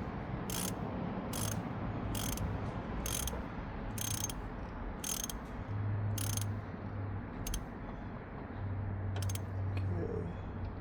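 Ratchet wrench clicking in short bursts on each back-swing, about once a second, as the new automatic transmission oil pressure switch is run in. The strokes come further apart near the end as it snugs up.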